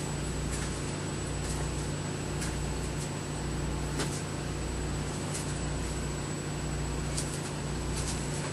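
Steady low electrical hum and hiss with a thin high whine, the low hum dipping briefly about once a second, and a few faint clicks.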